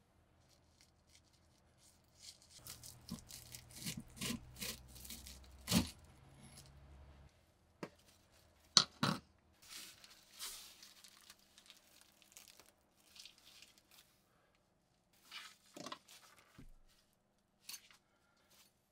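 Plastic wrapping crinkling and tearing as it is picked open with metal tweezers, mixed with sharp clicks and taps of the tweezers and small metal items on a wooden surface.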